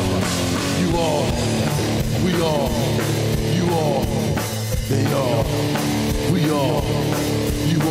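Instrumental stretch of a rock song: guitar over a drum kit, with falling guitar phrases repeating every second or so.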